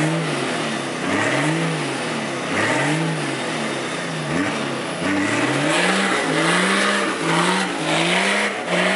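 Toyota Land Cruiser 70's engine revving up and down over and over, the revs coming quicker toward the end, with the hiss of its tyres spinning and throwing mud: the truck is stuck in a deep mud rut.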